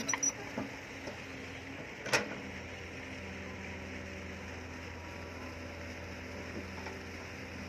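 Hitachi hydraulic excavator's diesel engine running steadily while it digs, with a sharp knock a couple of seconds in.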